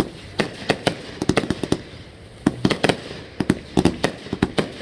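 Fireworks going off: rapid runs of sharp bangs, coming in about four quick clusters.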